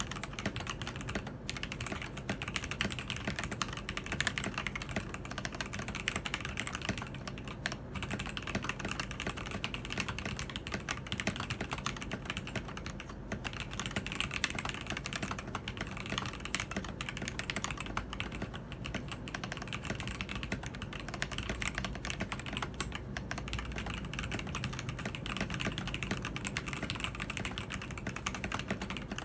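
Rapid, continuous typing on a Keydous NJ80 mechanical keyboard with TTC Gold Pink linear switches, a dense clatter of key presses.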